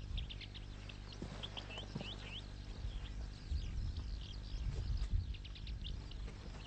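Small birds chirping in quick, short calls throughout, over a low rumble with a few dull thumps, the loudest about three and a half and five seconds in.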